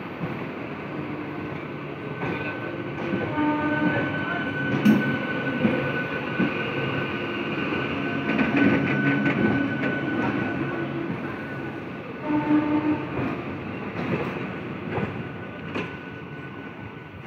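Eastern Railway ICF-built EMU local train rolling past along the platform, its wheels clicking over the rail joints above a steady rumble and a thin motor whine. A short tone sounds twice, about 4 and 12 seconds in. The sound swells through the middle and eases off toward the end as the last coach goes by.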